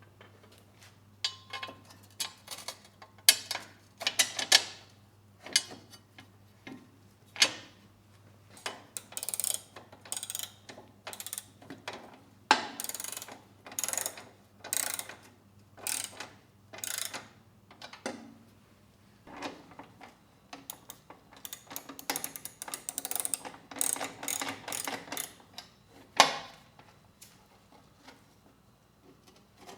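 Hand ratchet wrench clicking in short runs of quick strokes, with pauses between runs and a few sharper knocks of metal tools and hardware, as bolts are run down and tightened.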